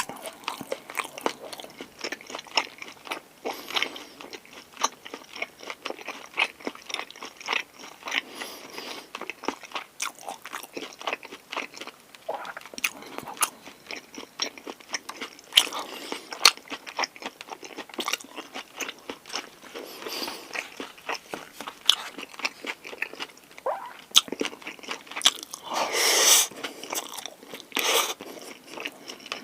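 Close-miked eating of a convenience-store pork-galbi lunchbox: steady chewing and biting with many small wet, crunchy clicks. There are a few louder bursts about halfway through and again near the end.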